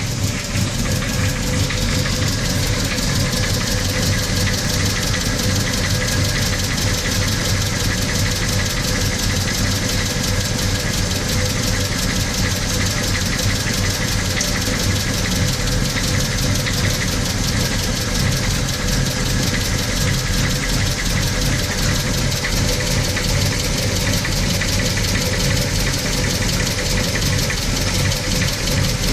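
VW Gol CL's 1.6 AP four-cylinder petrol engine running cold at a steady speed, with a rapid, regular ticking over the engine note. The noise appears only while the engine is cold and goes away after a few minutes of warming up; its cause is unknown.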